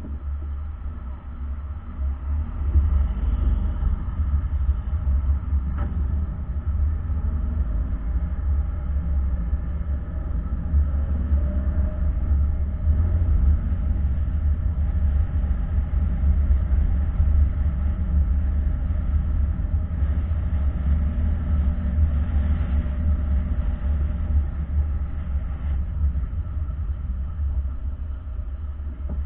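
Steady low rumble of a car being driven, heard from inside the cabin: road and engine noise picked up by a dashcam microphone. It grows louder about two seconds in.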